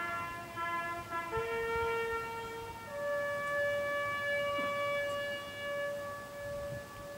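Brass bugle sounding a ceremonial call, stepping through a few notes of its natural scale before one long held high note that lasts about four seconds.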